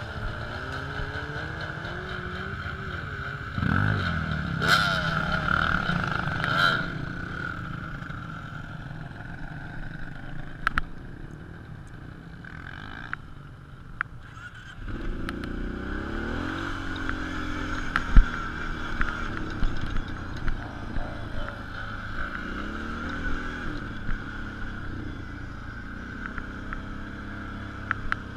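Off-road ATV and dirt-bike engines running, with one small engine revving up as it pulls away twice, at the start and again about fifteen seconds in, then carrying on at speed. A sharp knock comes about eighteen seconds in.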